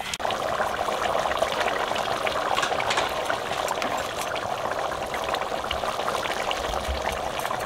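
Beef heart and kidney curry bubbling and sizzling in an open steel pot over a wood fire, the meat already tender: a steady crackling hiss with scattered small clicks, starting abruptly just after the start.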